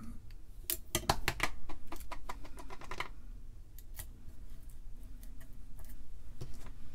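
Kapton tape crackling in a quick run of sharp clicks for about two seconds as it is peeled and stuck down over the circuit-board pins. A few faint ticks follow as the tape is worked down with a hobby knife.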